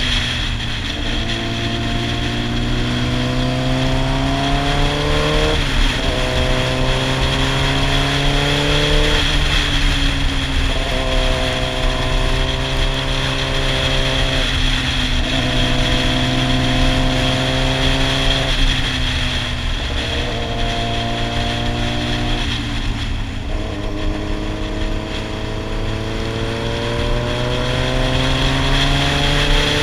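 Yamaha sportbike's inline-four engine under the rider, pulling up in pitch under throttle and then dropping back as the throttle closes, about six times over, as it is ridden through a run of curves.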